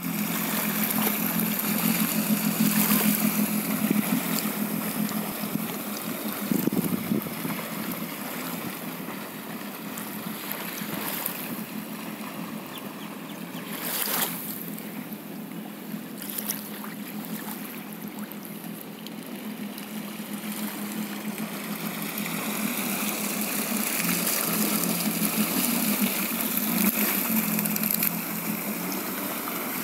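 Yamaha jet ski's engine running at low speed, a steady hum that grows louder and softer as it circles, over the wash of water churned up behind it.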